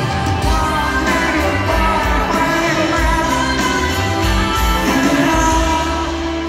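Live rock band with a lead singer playing over a concert PA system, heard from within the crowd: a steady drum beat under synth and vocal lines.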